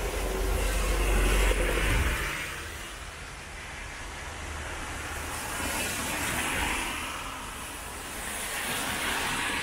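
Road traffic on a rain-soaked street: a van drives past with a low engine rumble and the hiss of its tyres on the wet road, loudest in the first two seconds. Further vehicles swish by on the wet tarmac about six seconds in and again near the end.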